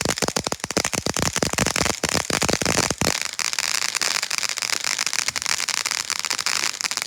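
Consumer fireworks going off: a rapid run of sharp pops and bangs for about three seconds, then a dense high-pitched crackle that stops abruptly near the end.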